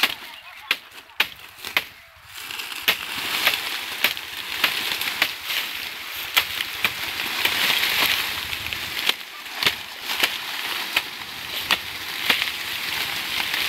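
Dry sugarcane leaves and stalks rustling and crackling, with many sharp snaps at irregular intervals, as a pile of cut cane is handled and gathered up.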